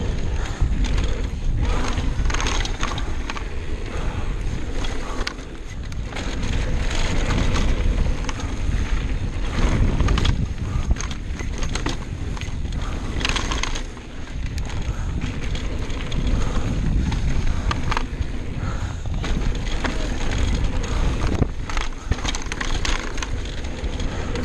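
Downhill mountain bike ridden fast down a dirt trail: wind buffeting the microphone over a steady rumble of tyres on dirt, with constant rattles and knocks from the bike over bumps.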